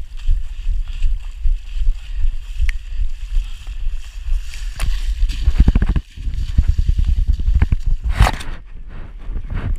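Splashing through shallow floodwater: repeated sloshing steps that grow denser and louder, then a loud splash about eight seconds in as the runner goes down into the water under a cargo net.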